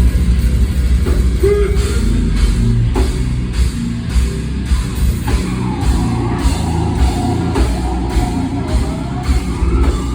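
Loud rock music with a driving drum-kit beat, about two beats a second.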